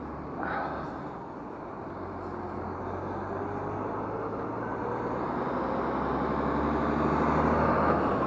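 Diesel engine of a refuse collection lorry running as it drives past, a low drone that grows louder over several seconds and peaks near the end.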